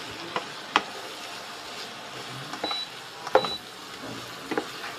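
Peeled shrimp sizzling in a non-stick frying pan, stirred with a wooden spatula that knocks and scrapes against the pan several times.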